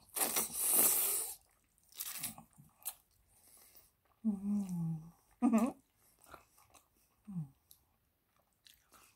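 A person slurping a mouthful of fettuccine noodles off chopsticks, a loud wet slurp in the first second and a half, then chewing with smaller slurps, wet mouth clicks and two short hums of the voice about four and five and a half seconds in, close to the microphone.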